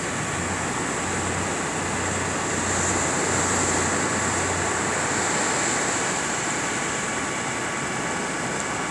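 Engines running steadily, a low hum that fades about five seconds in, under a continuous hiss of surf and wind.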